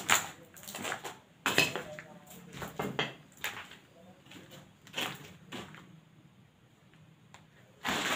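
Footsteps crunching and scraping over a debris-strewn floor, several irregular steps that stop about six seconds in.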